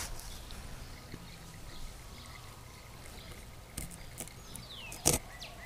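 Faint background with a steady low hum; a short falling chirp sounds about four seconds in, and a single sharp knock about five seconds in.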